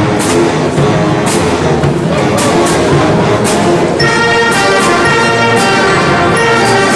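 Brass and drum band playing. Drum strikes punctuate the brass for the first few seconds, then about four seconds in the brass comes in loud on a full, held chord.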